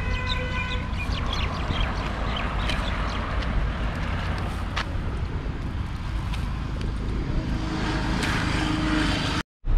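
A feeding flock of feral pigeons flapping and clattering their wings as birds take off and land, over a low steady rumble. A brief pitched honk sounds at the very start.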